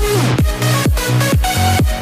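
Electronic dance music with a steady kick-drum beat, about two beats a second, under held synth notes.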